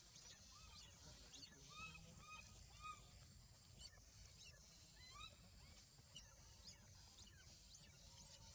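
Baby macaque crying: faint, short, high arched calls, several in quick succession in the first three seconds and a few more around five seconds, over a steady high hiss.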